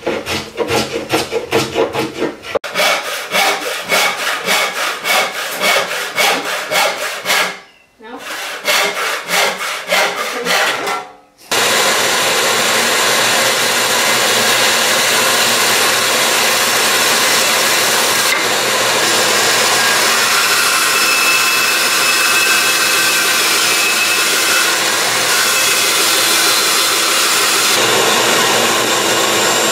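Handsaw cutting white oak in quick back-and-forth strokes, in three short stretches. A little under halfway through, it gives way to the steady running noise of a band saw as an oak board is fed through it.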